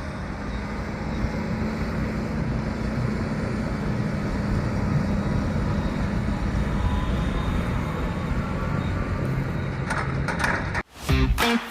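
Farm machinery engine running steadily, with a rough, crunching noise over a low hum; it cuts off near the end.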